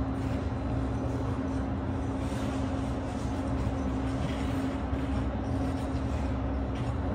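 Steady hum of an indoor ice rink's machinery, a constant low drone with one held tone, with faint scrapes of skate blades on the ice a few times.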